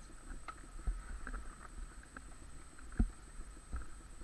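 Scattered dull thumps and rustling in grass, the loudest about three seconds in, with the dirt bike's engine not running.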